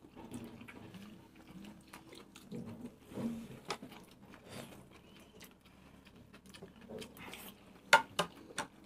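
People eating burgers and noodles: close chewing and mouth-smacking sounds with soft clicks of forks against bowls, and one sharp click about eight seconds in.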